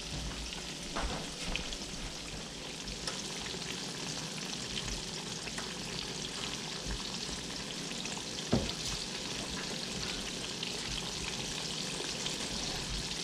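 Breaded catfish and crappie fillets deep-frying in oil in a cast iron skillet: a steady sizzle dotted with small crackling pops. A single sharp knock about eight and a half seconds in.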